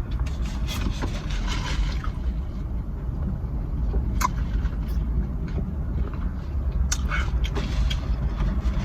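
Steady low rumble, with a few light clicks and rustles over it.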